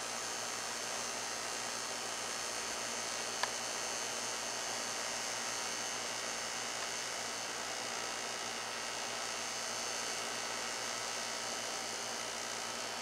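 Steady hiss with a faint high whine, broken once by a short click about three and a half seconds in.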